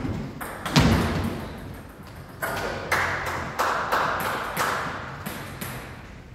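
Table tennis rally: the ball clicks sharply off the bats and the table, about two hits a second, each with a short echo. A heavy thump about a second in is the loudest sound.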